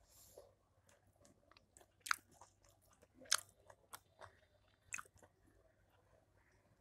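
Eating by hand from a steel thali: chewing, and fingers mixing rice and curry on the plate, with scattered small clicks and three sharper ones about two, three and five seconds in.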